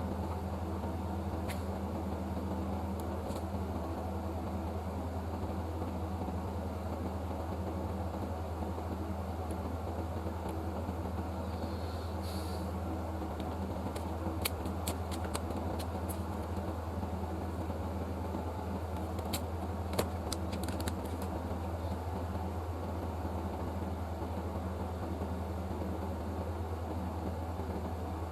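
Steady low hum and fan-like whir of running workbench equipment, with a few light clicks and taps in the middle stretch.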